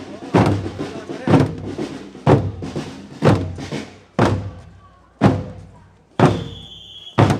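A big drum beaten at a steady march pace, about one stroke a second, each stroke dying away before the next. A high steady tone sounds over it near the end.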